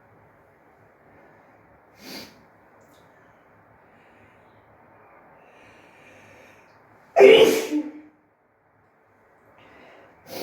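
A woman sneezing once, sudden and loud, about seven seconds in. Shorter, quieter bursts come about two seconds in and again at the very end.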